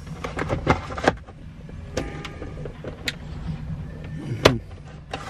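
Plastic center-console trim of a Mazda RX-8 clicking and knocking as it is handled and fitted. There are a few light clicks in the first second and one sharp snap about four and a half seconds in, over a low steady rumble.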